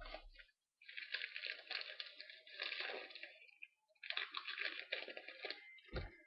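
A trading-card pack wrapper being torn open and crinkled, in two stretches of crackling rustle, with a short thump near the end.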